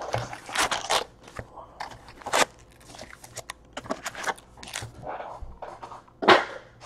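Wrapped trading-card packs crinkling and clacking as they are lifted out of a cardboard hobby box and stacked on a table, with a louder crinkle near the end.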